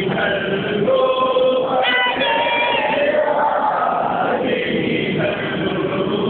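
A group of voices singing a Sufi devotional chant together, in long held notes.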